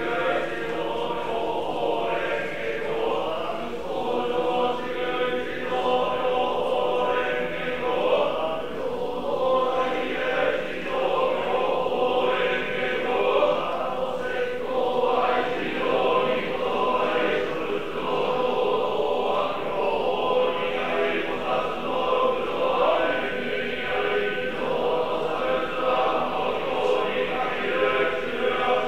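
Group of Nichiren Buddhist monks chanting together, a steady many-voiced chant that carries on without a break.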